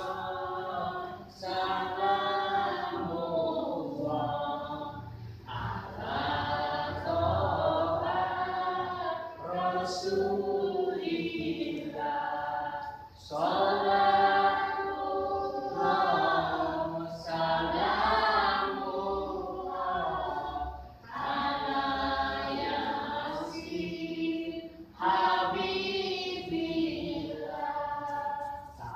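A group of voices singing together in phrases a few seconds long, with short breaks for breath between them.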